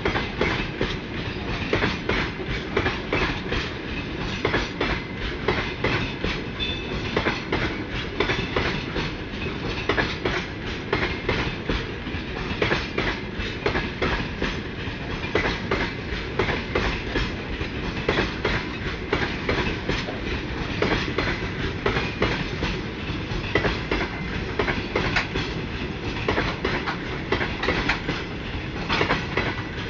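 Freight train wagons rolling past, their wheels clattering over the rail joints in a continuous clickety-clack over a steady rumble.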